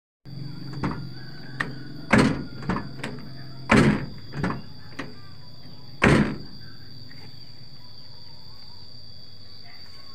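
Steel cab door of a small pickup being shut several times, each closing a solid thunk. The three loudest come about 2, 4 and 6 seconds in, with lighter knocks between. The door is being tried after its worn hinge bushings were replaced.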